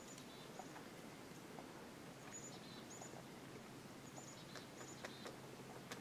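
Faint, irregular pecking taps of a pileated woodpecker chiselling into a dead tree limb, with short, high chirps from small birds scattered throughout.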